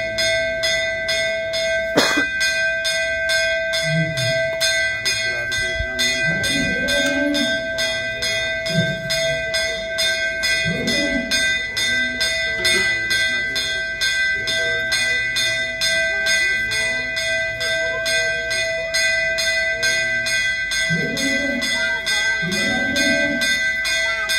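Temple bell ringing continuously in fast, even, machine-like strokes, its ringing tones holding steady throughout. A sharp knock sounds about two seconds in.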